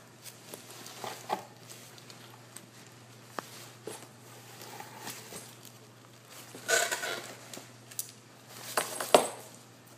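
Handling of a package during an unboxing: scattered small clicks and knocks, with a brief rustle about seven seconds in and a sharper, louder rustle and knock near the end.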